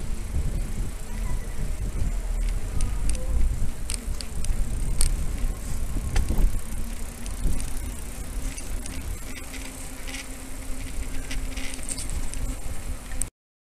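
Wind rumbling on the microphone of a camera riding on a bicycle, with road noise and scattered clicks and rattles from the bike. A steady low hum joins about six seconds in. The sound cuts off abruptly near the end.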